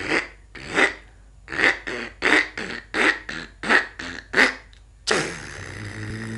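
A man making vocal sound effects with his mouth and throat: a string of short, sharp bursts at about two a second. About five seconds in, a sudden start leads into a long held sound that slowly rises in pitch.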